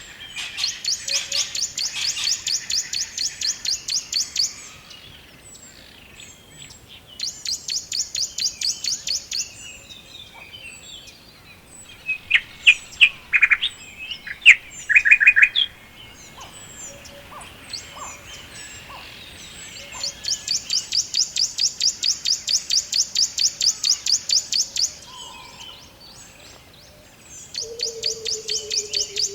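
Wild songbirds singing: a high, rapid trill repeated in runs of two to five seconds, with a short burst of louder, clearer notes about halfway through. A low tone slides slightly down near the end.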